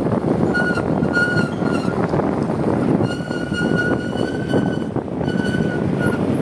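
Wind rushing over the microphone of a moving vehicle, with a horn honking over it: a few short toots, one long toot of about two seconds in the middle, then two more short toots.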